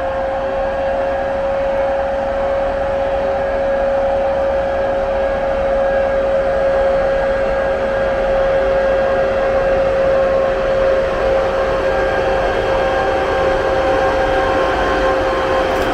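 EP2K electric locomotive moving off slowly at the head of a passenger train. It gives a steady whine at one pitch over a fan-like rush, growing a little louder over the first few seconds as the locomotive comes alongside.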